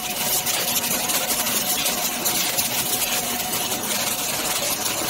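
Aluminium can production line machinery running: a steady mechanical din of fast, fine clatter over a constant whine.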